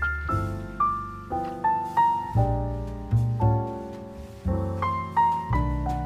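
Background piano music: a gentle melody of single struck notes, each fading away, over low bass notes.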